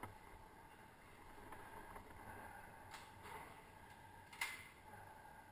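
A few sharp, short cracks of airsoft gunfire over near quiet: one right at the start, one about three seconds in and the loudest about four and a half seconds in.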